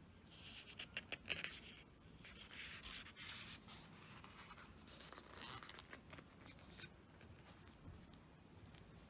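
Faint rustling and sliding of photo-album pages being handled and turned, in several short bursts with small clicks.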